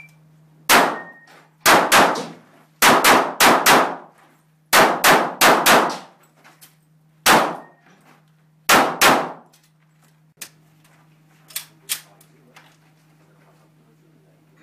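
Rapid pistol fire, about fifteen shots in quick strings of two to four, each a sharp crack with a short metallic ring in a small wooden-walled indoor range. A few faint clicks follow near the end once the shooting stops.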